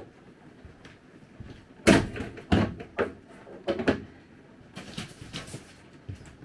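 A camper trailer door banging shut with one sharp knock about two seconds in, followed by a few lighter knocks and clunks and a short rustle.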